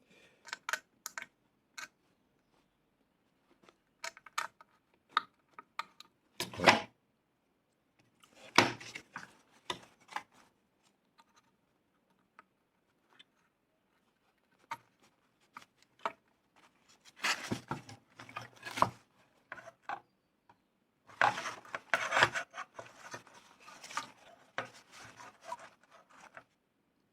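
Hand work on a TV power-supply circuit board: scattered clicks and taps, then two stretches of rubbing and scraping, the first about two-thirds of the way in and a longer one near the end.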